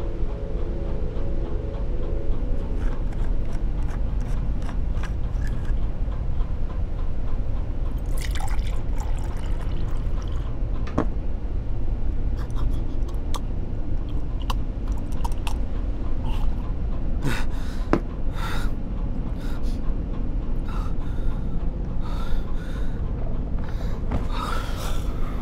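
Liquid being poured and dripping, with scattered small clicks and knocks as a glass and mug are handled, over a steady low rumble.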